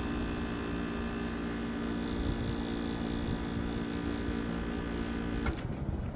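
The Tecumseh AK reciprocating compressor of a 1976 Kenmore 7500 BTU window air conditioner runs with a steady hum. About five and a half seconds in there is a click and the hum cuts out.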